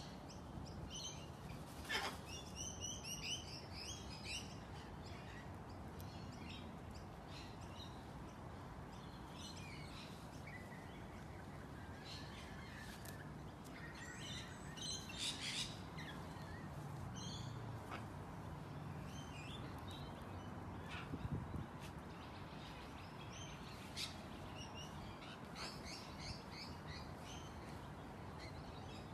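Birds chirping and calling in short scattered runs over a steady faint background hiss, the loudest calls about two seconds in and again around fifteen and twenty-four seconds in.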